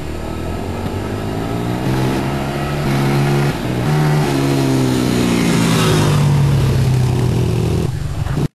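Car engine running under acceleration, its pitch stepping up and dropping briefly about three and a half seconds in, as at a gear change, then climbing steadily. It cuts off suddenly near the end.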